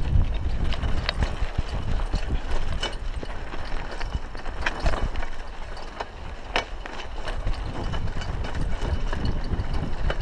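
Raleigh Ascent mountain bike rolling along a gravelly dirt road: steady tyre rumble on the loose surface, with scattered, irregular clicks and rattles from the bike over the bumps.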